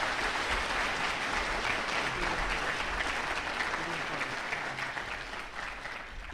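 Audience applauding, many hands clapping together, dying away near the end.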